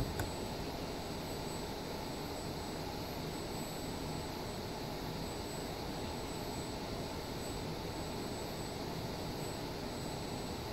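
Steady hum and hiss of lab equipment, with faint high-pitched whines held steady throughout. A couple of short clicks come right at the start.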